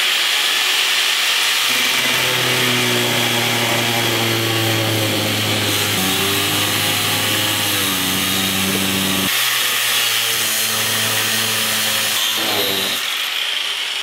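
Angle grinder with a cut-off disc slicing through a metal padlock body: a steady, loud grinding with the motor's tone shifting as the disc bites into the metal.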